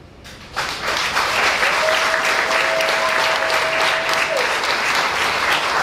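Audience breaks into applause about half a second in, dense and steady, just after a poem reading ends. A single long steady whistle is held over the clapping for a couple of seconds.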